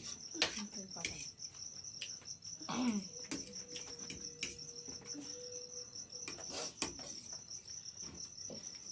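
Crickets chirping in a steady high trill, with a few scattered clicks and a short vocal sound about three seconds in.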